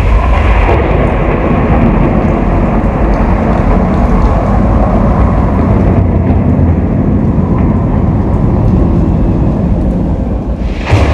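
A loud, deep, steady rumble with a hiss over it, played over a PA sound system as part of an opening show soundtrack, swelling suddenly just before the end.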